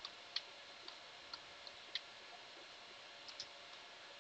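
Faint computer keyboard keystrokes: about eight separate, irregularly spaced key clicks as a short terminal command is typed.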